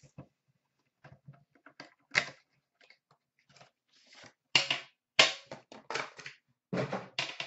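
Handling of an Upper Deck Premier hockey card box: the metal tin is slid out of its cardboard box and set down, with scattered clicks and scrapes, then louder clacks and knocks from about four and a half seconds in.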